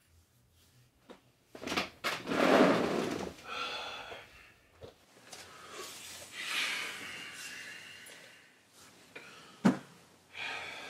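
A man's heavy breaths and sighs, with a few light clicks and a single sharp knock about a second before the end.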